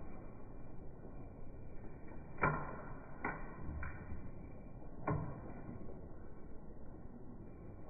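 Four sharp clicks or knocks over a steady hiss, the loudest about two and a half seconds in and another about five seconds in.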